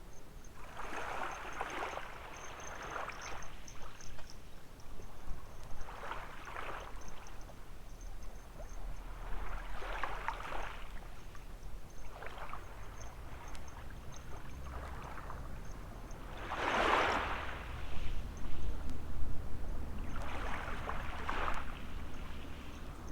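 Small waves washing up the beach and draining back, one wash every few seconds, the strongest about two thirds of the way through, over a low steady rumble.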